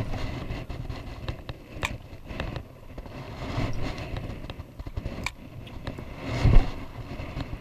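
Wind buffeting the microphone, with rustling and a few sharp clicks from handling the fishing rod and reel, and a heavy low thump about six and a half seconds in.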